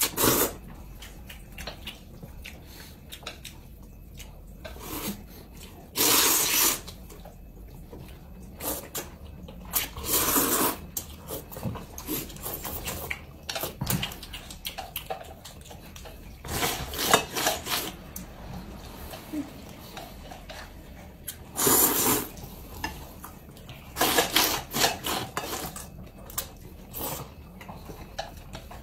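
People slurping noodles: several loud, wet slurps spread through, with quieter eating sounds and small clicks of chopsticks against bowls between them.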